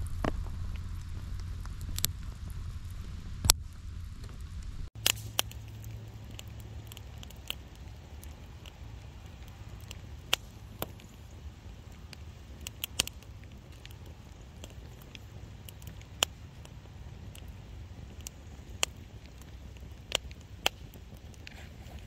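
Wood campfire of split kindling stacked in a teepee, burning with sharp crackles and pops every second or two over a low steady rumble.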